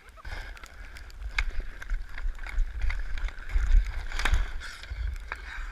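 Hockey skates scraping across outdoor ice, with several sharp clacks of sticks and puck, and wind buffeting the microphone.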